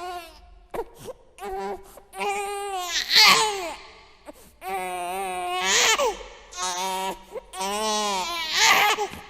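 Infant crying in a series of drawn-out wails, several rising and then falling away, broken by short gasping breaths between them.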